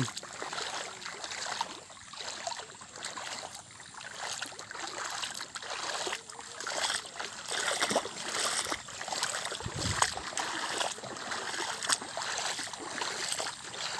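Shallow floodwater flowing and trickling across a dirt path, with scattered light splashes.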